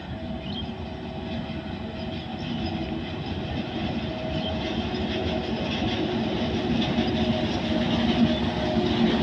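WAG-9HC electric locomotive hauling a freight train, approaching and growing steadily louder: a steady hum over the rumble and clatter of the wheels on the rails.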